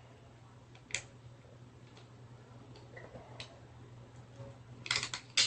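Faint clicks and knocks of small objects being handled over a low steady hum: a single click about a second in, another a little past three seconds, then a quick cluster of sharper clicks near the end.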